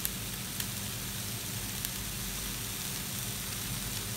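Pan of shredded chicken, mushrooms and capsicum sizzling steadily on the stove as thick cream is poured in, over a low steady hum, with a few faint ticks.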